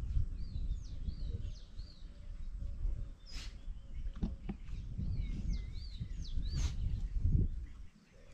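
Short, high chirping calls, each rising and falling in pitch, in two runs of several notes: one near the start and one about five seconds in. Two sharp high clicks and an uneven low rumble lie beneath them.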